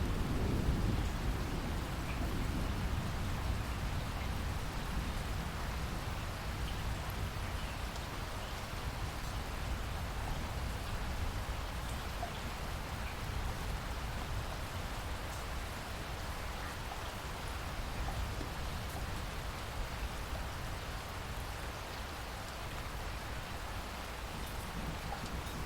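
Heavy rain falling steadily, with a few scattered drop ticks; a thunder rumble dies away in the first second or two.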